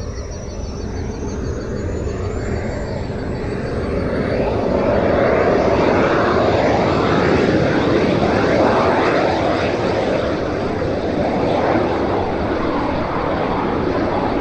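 The twin model jet turbines of a large Su-30MK RC jet spool up: a high thin whine rises in pitch over the first few seconds as the sound grows louder. It then settles into a steady, loud rushing jet noise at takeoff power during the runway roll.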